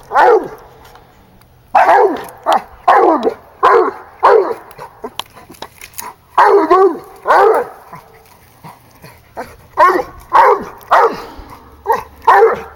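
Bloodhound baying treed: loud, full-throated bays up the tree, each dropping in pitch, in runs of two to six with short pauses between, the hound's signal that the raccoon is treed.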